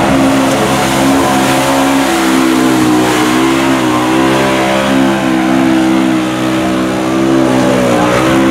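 Side-by-side UTV engine held at high revs while its tyres spin through a deep mud hole, the pitch wavering slightly, with a steady hiss of flung mud over it.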